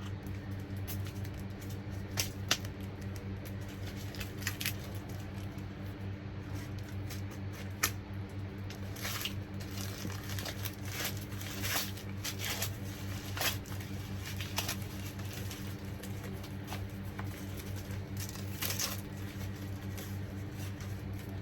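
Irregular rustling, crinkling and small clicks of gift packaging being handled and unwrapped, over a steady low hum.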